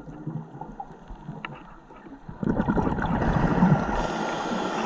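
Scuba diver breathing underwater through a regulator: a burst of exhaled bubbles starts suddenly about two and a half seconds in and carries on, with a higher hiss near the end.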